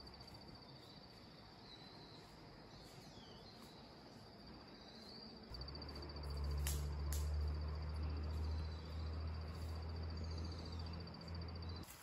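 An insect trills steadily in a high, evenly pulsed song, with a few faint bird chirps. About halfway through a low steady rumble comes in and becomes the loudest sound, with a couple of sharp clicks.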